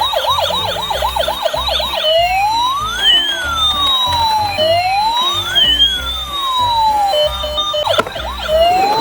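Emergency-vehicle sirens. First comes a fast yelp of about four rising whoops a second. Then two slow wails sweep up and down in opposite directions, crossing each other, with a click near the end, over background music with a low bass line.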